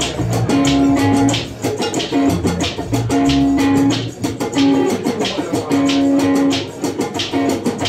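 Live band playing, electric guitar to the fore over a steady, busy drum and percussion beat, with a short held note repeating in a riff.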